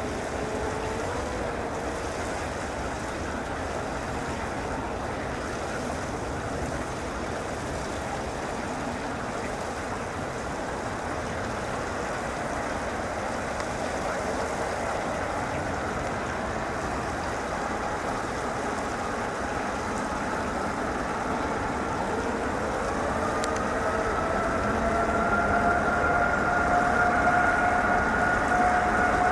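Boeing 747-8 freighter's four GEnx turbofan engines running as a steady rushing noise with a faint whine. About three-quarters of the way in they spool up, the whine rising in pitch and the noise growing louder as thrust comes up for the take-off roll.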